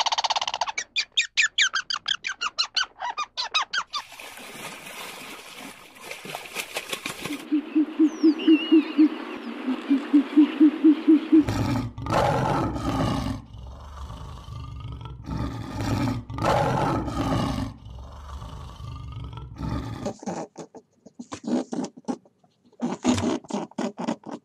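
A run of different animal calls, one recording after another. First come quick repeated high calls, then a low pulsing call, then several loud, long calls with a deep low base, then short scattered bursts.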